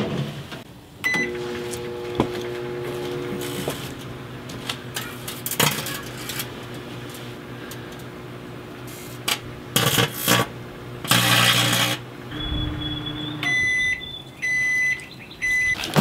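Emerson 1000-watt microwave oven started with a keypad beep, then running with a steady hum while the loose aluminium foil ball inside sparks in several loud crackling bursts. The oven stops about three-quarters of the way through and gives three beeps.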